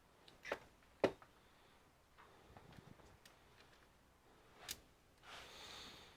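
Sharp clicks and taps of small parts and tools being handled while taking apart an all-in-one computer, three louder ones among fainter ticks, then a short sliding rustle near the end.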